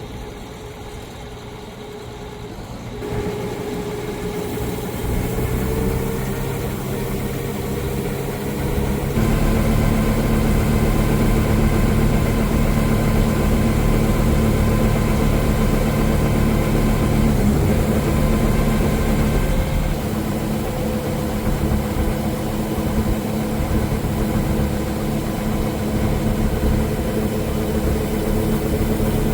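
Engine of farm harvesting machinery running steadily, growing louder about three seconds in and again about nine seconds in, then holding at a steady drone.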